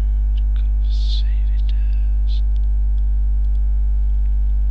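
Loud, steady electrical mains hum with a stack of overtones on the recording, and a few faint clicks of a computer mouse.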